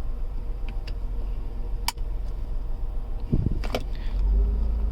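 Car engine idling, heard as a steady low rumble inside the cabin, with a few sharp clicks and a soft knock from handling inside the car.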